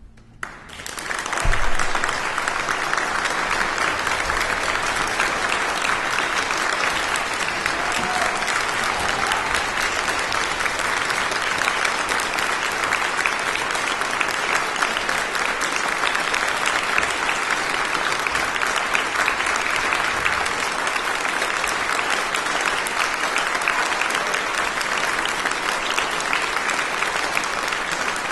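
Audience applause breaking out about half a second in, swelling to its loudest within a second or so and then holding steady.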